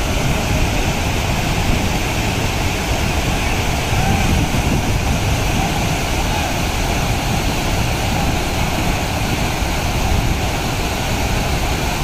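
Waterfall of dam overflow water pouring down steadily: a dense, even rush of falling water.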